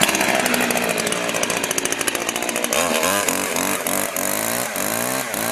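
Petrol chainsaw running, its engine coming in abruptly at full level. From about three seconds in, the engine is revved up and down repeatedly, two or three times a second.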